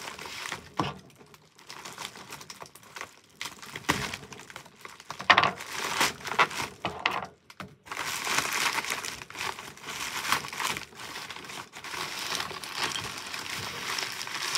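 Plastic bubble mailer being crinkled and torn open by hand. The crackling is sparse at first, with a sharp loud snap of plastic about five seconds in, then becomes busier and steadier from about eight seconds on.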